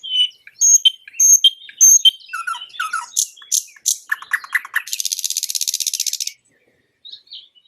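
Nightingale singing. A run of loud repeated notes gives way to lower notes, sharp clicks and a rapid series, then a fast buzzy trill of about a second and a half that stops abruptly. A few faint notes follow near the end.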